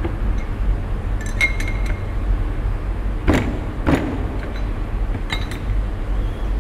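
Steel tool-holder parts clinking and knocking as an end mill is fitted into a collet tool holder and its clamping nut is put on by hand. There is a cluster of light ringing clinks about a second in, two louder knocks around three and four seconds, and a few more clinks near the end.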